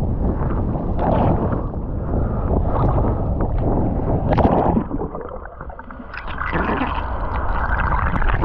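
Ocean water churning and splashing right at the microphone, with wind buffeting it. About five seconds in the sound turns muffled and quieter for a second or so, then the splashing comes back.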